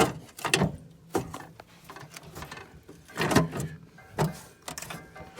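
A series of knocks and clunks from cast-iron cooker parts being handled, about six in a few seconds, with a slightly longer clatter just past halfway.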